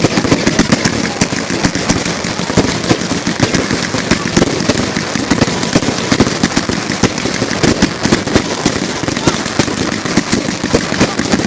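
Fireworks going off in a dense, unbroken string of rapid sharp cracks and bangs, many a second.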